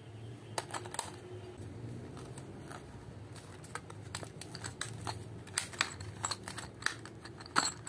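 Clear plastic blister pack being peeled and pried open by hand, giving irregular crinkles and sharp clicks, with one louder click near the end, over a faint low hum.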